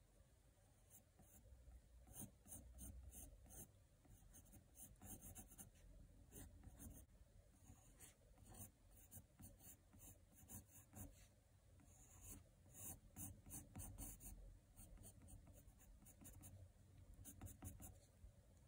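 Faint scratching of a black Col-Erase coloured pencil on drawing paper: many short, quick strokes in irregular runs.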